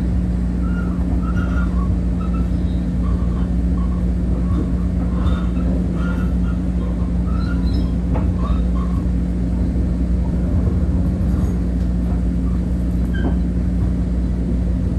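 Inside an electric commuter train car rolling slowly: steady low rumble of the wheels on the track under a constant hum, with scattered faint short squeaks.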